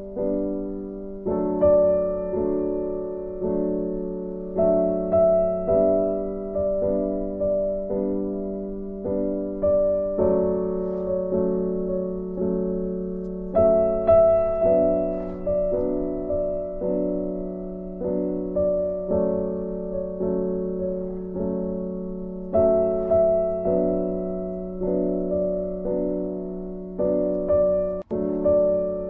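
Gentle background piano music: a slow, evenly paced line of single notes over held low tones, each note fading before the next, with a momentary break near the end.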